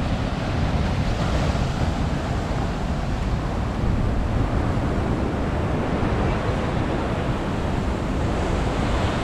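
Ocean surf breaking and washing over the boulders of a rocky breakwater, a steady rushing noise with a heavy low rumble from wind on the microphone.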